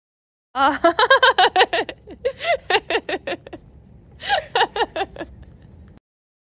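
A woman laughing in a quick run of high-pitched "ha-ha" pulses, then a second, shorter burst of laughter about four seconds in.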